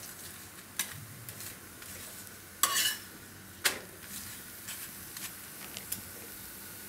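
Flat metal spatula scraping and tapping on an iron tawa as a thepla flatbread is pressed and shifted while it cooks in oil, over a steady faint sizzle. The loudest sounds are a longer scrape just under three seconds in and a sharp clack soon after, among lighter taps.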